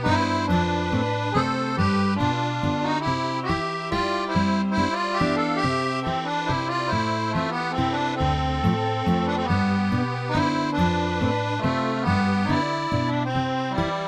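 Background music: a sustained melody over a bass line that steps through short notes.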